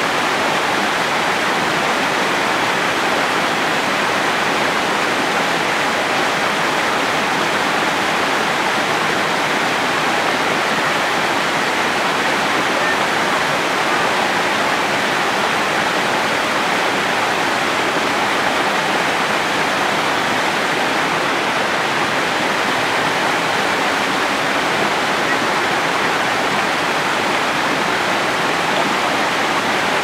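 Small waterfall: water spilling over a rock ledge close by, a steady rushing splash that does not change.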